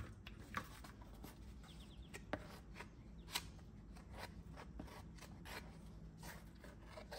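A metal 5-in-1 painter's tool scraping and folding Bondo wood filler on a piece of cardboard, mixing in its hardener. The sound is faint, irregular scrapes and soft taps.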